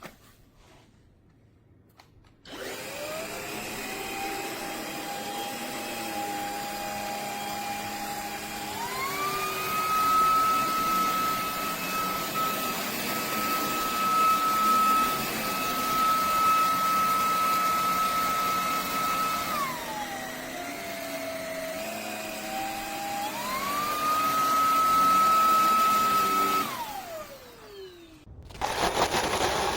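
Eureka RapidClean Pro NEC280TL cordless stick vacuum motor starting up with a steady whine. The pitch rises as it is switched to high, drops back, and rises to high again. About 27 seconds in it winds down with a falling whine and stops: cutting out on high mode, the fault the owner is demonstrating.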